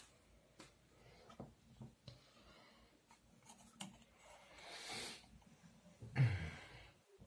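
Close handling noise of a phone being carried and rubbed: scattered clicks and rustling, with a louder bump a second before the end.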